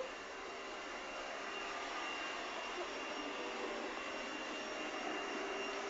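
Vacuum cleaner motor running steadily: an even whooshing hiss with a faint steady whine, growing a little louder over the first couple of seconds.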